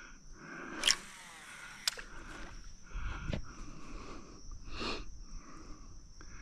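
Insects chirring in a pulsing chorus that swells and fades about once a second. A sharp click and a brief swish come about a second in, and another click follows a second later.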